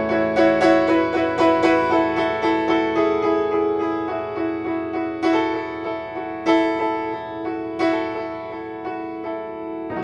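Solo piano music: a quick flowing run of notes, about three or four a second, with the notes ringing on. About halfway through it thins to a few stronger strikes a little over a second apart.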